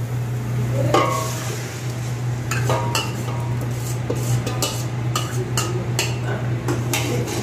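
Steel ladle scraping and clinking against a steel bowl as tomato purée is scraped out into a pot of fried onion and garlic, with quick clinks coming several times a second in the second half. A steady low hum runs underneath.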